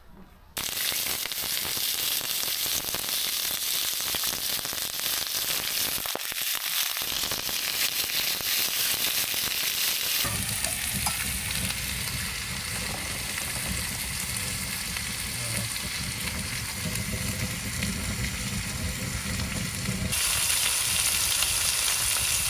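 Slices of pork belly sizzling and frying in a pan on a wood stove: a steady, dense hiss. The sound changes abruptly about ten seconds in and again about twenty seconds in.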